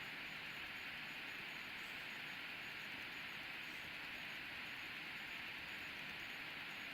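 Faint, steady hiss with no distinct sounds in it: background noise.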